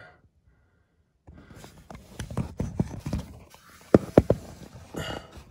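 Close-up handling noise around the belt pulleys of a skid steer's engine bay: scraping, rustling and light knocks of hands and metal, starting about a second in, with two sharp clicks about four seconds in.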